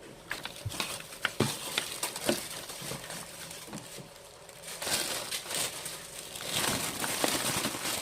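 Handling noise: crinkling and rustling with many small clicks and knocks, swelling twice in the second half.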